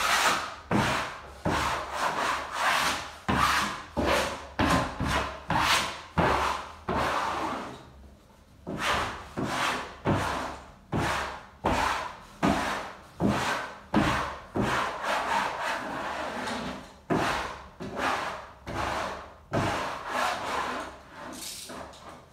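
Hand-held wallpaper smoother swept repeatedly over a freshly hung wallpaper strip, pressing it onto the wall. It makes a dry, scraping rub in quick strokes, about one or two a second, with a brief pause about eight seconds in.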